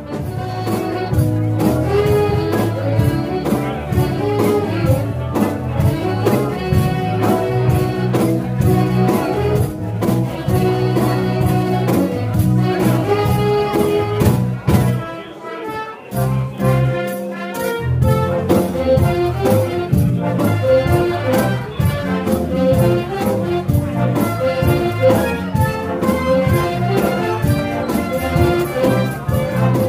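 Big band playing jazz dance music, with trumpets, trombones and saxophones over a rhythm section. The bass drops out briefly about halfway through, then the full band comes back in.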